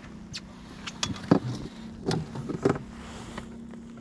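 A hooked black bass flapping and slapping against an inflatable boat's tube and gear, five or so sharp knocks over a steady low hum.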